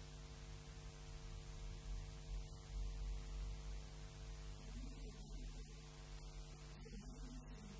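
Steady electrical mains hum, with two faint, brief low sounds about five and seven seconds in.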